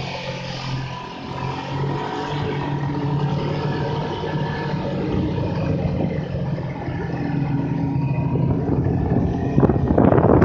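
Snowmobile engine running at a steady pitch. Near the end a louder rushing noise comes in over it.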